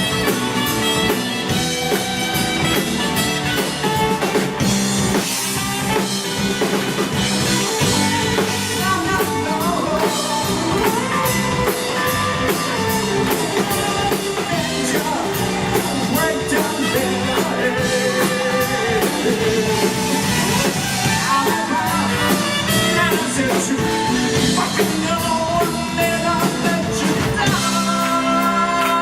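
Live pop-rock band playing a cover song: a drum kit keeps a steady cymbal beat under bass, guitar and a lead singer.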